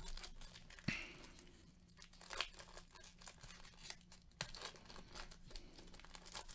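Foil wrapper of a trading-card pack being torn open and crinkled by gloved hands: faint, irregular crinkling with a few sharper rips.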